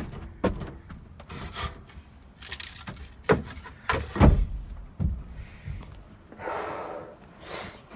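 A series of irregular knocks and thumps, about seven in all, followed near the end by a short rustling scrape.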